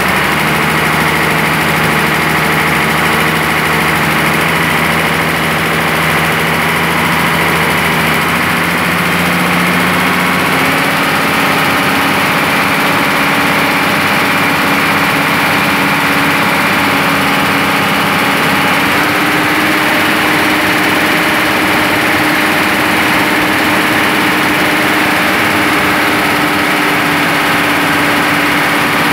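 Komatsu PC200-7 excavator's diesel engine running steadily, with its throttle linkage held by hand at the governor motor during warm-up, since that motor hunts up and down while cold. Engine speed steps up about ten seconds in and again just before twenty seconds in.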